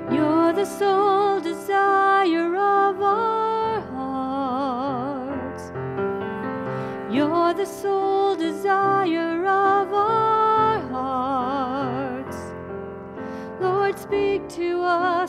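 Offertory music: a slow solo melody with wide vibrato and sliding attacks, over sustained keyboard accompaniment.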